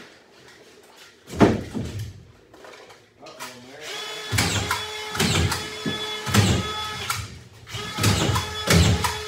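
A drywall sheet knocks up against the ceiling joists once, about a second and a half in. From about four seconds on, a collated drywall screw gun's motor whines steadily while screws are driven into the sheet with repeated clicks and knocks; the motor stops briefly and starts again near the end.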